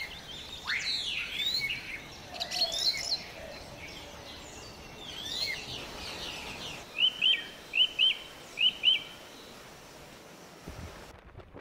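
Several wild birds singing and calling, with quick sweeping whistled notes, then a run of short chirps in three quick pairs about seven seconds in.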